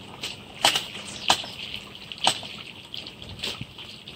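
River water splashing at the bank, with several short, sharp splashes at uneven intervals over a steady watery background.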